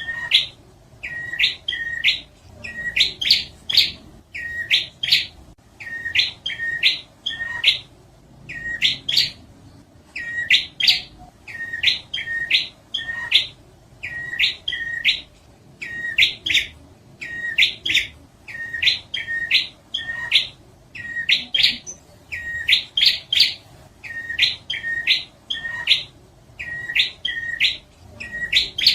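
Prinia (prenjak) song: short, loud phrases of sharp high chirps, each opening on a lower note, repeated about once a second without a break.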